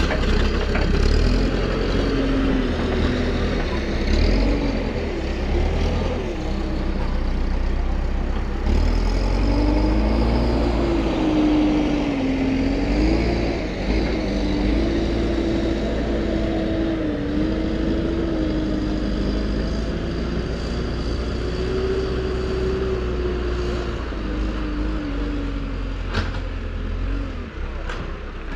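Backhoe loader's diesel engine running as the machine drives off along the trench, its pitch rising and falling with the throttle. There are a couple of light knocks near the end.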